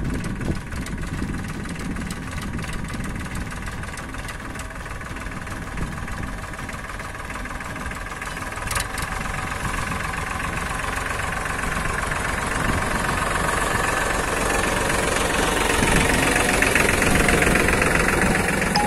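Farmtrac tractor's diesel engine running steadily, growing louder as the tractor drives up and passes close by.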